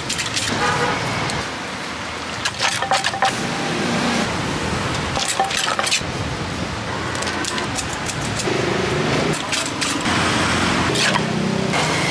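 Wooden pestle knocking in a clay mortar while pounding chilies, several sharp knocks spread through, over a steady street-stall background of voices and traffic hum.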